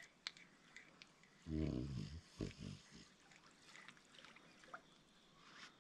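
A low grunt lasting about half a second, about a second and a half in, followed by two short grunts, among faint scattered clicks.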